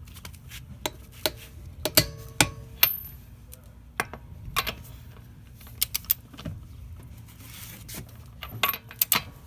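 Irregular metallic clicks and clinks from a wrench and other hand tools being worked while the wheel's lug nuts are tightened. About twenty separate sharp clicks, some in quick clusters, over a steady low hum.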